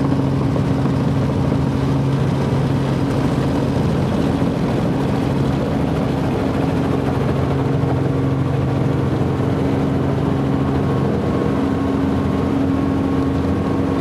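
Helicopter engine and rotor running steadily, heard from inside the cabin as a loud, even drone with a low hum.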